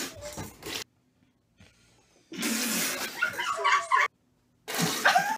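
Spluttering laughter and water sprayed from the mouth as a held mouthful is spat out, in three rough bursts cut off by sudden short silences.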